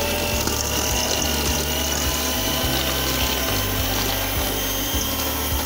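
Electric hand mixer running steadily with a constant motor whine, its beaters creaming butter and brown sugar in a stainless steel bowl.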